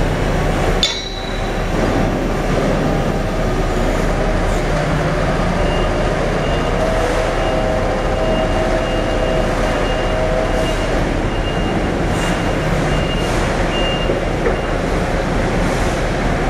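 Steady mechanical rumble of heavy machinery at a harbour quay, with a faint high whine running through the middle.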